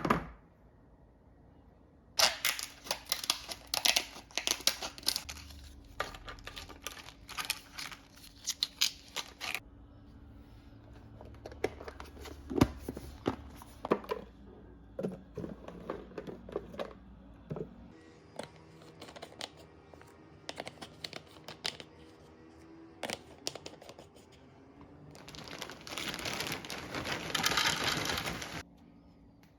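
Plastic food packaging crinkling and containers clicking and knocking as they are handled, in two longer rustling stretches, one a couple of seconds in and one near the end.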